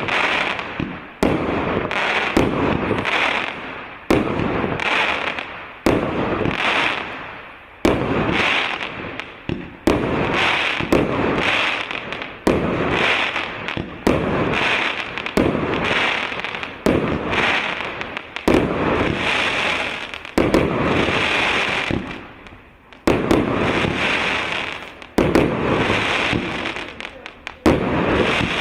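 Fireworks cake of 168 shots of 1.25-inch calibre firing in sequence: a sharp bang about every one to two seconds, each followed by a fading burst.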